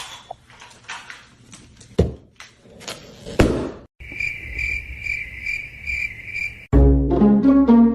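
Scattered knocks and thuds, then a steady cricket-like chirping pulsing about twice a second. A little before the end it cuts to plucked-string music.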